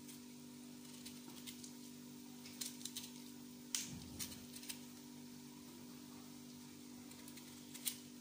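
Kitchen knife paring the tough skin off a taro root: a few scattered small scrapes and clicks, the sharpest about four seconds in and another near the end, over a steady low hum.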